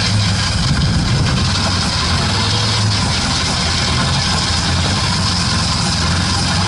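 IZh 21251 Kombi drivetrain running in fourth gear with the rear axle jacked up and the wheels spinning freely, a steady loud rumble from the rear-axle final drive. The owner takes the noise for large play in the worn main gear pair of the differential.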